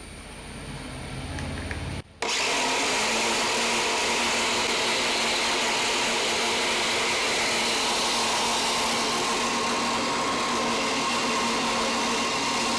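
Homemade mixer-grinder motor driving a vacuum/blower fan: a quieter low hum for about two seconds, then after a brief break a loud, steady rush of air with a constant motor hum, the unit running as a blower.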